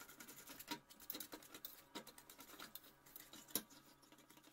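Faint, irregular ticking of a wire whisk against a stainless steel saucepan as an egg is beaten into sugar, flour and corn starch.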